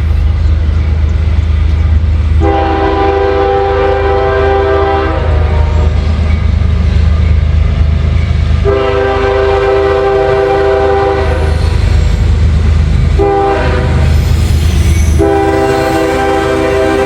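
Diesel locomotive passing close by, sounding a multi-chime air horn in the long, long, short, long grade-crossing pattern over the steady low rumble of its engine.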